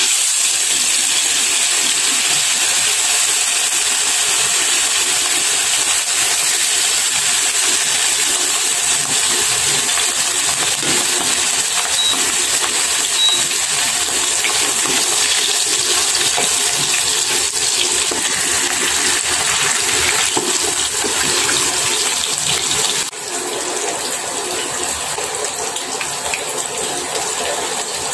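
Salmon steak sizzling in hot oil in a nonstick wok: a steady hiss that starts as the fish goes in and gets somewhat quieter about 23 seconds in.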